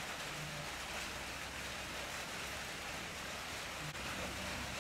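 Steady, even hiss of background noise, with no clear event in it. There is a faint tick about four seconds in.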